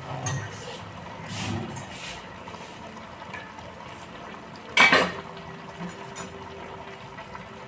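Kitchen dishes and utensils clattering: a few light clinks and knocks, with one louder clank about five seconds in.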